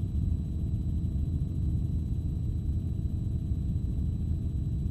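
Helicopter engine and rotor noise heard from inside the cabin: a steady low rumble.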